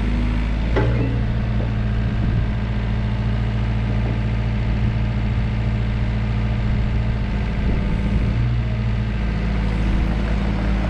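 Diesel engine of a Volvo ECR88 midi excavator running steadily at constant speed, with a brief clack about a second in.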